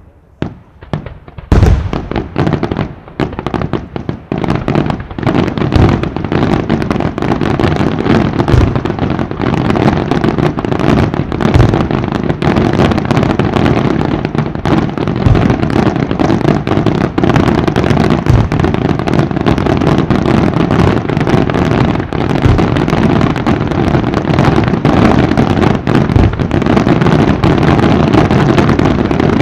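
Aerial firework shells bursting in a dense, unbroken barrage: after a brief lull, a heavy bang about a second and a half in starts rapid overlapping booms and crackling that keep going without pause.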